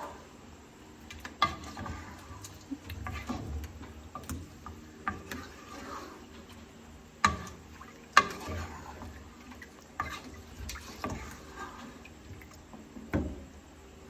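Kitchen clatter: irregular clinks and knocks of utensils against pots and dishes, about ten over the stretch, several leaving a short ringing tone.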